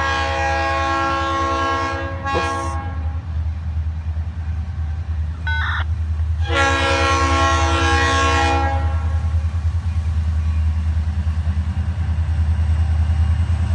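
Diesel locomotive air horn sounding a grade-crossing warning: a long chord-like blast, a short toot, then a second long blast. Beneath it runs the locomotive's low diesel rumble, which grows louder as the train draws near.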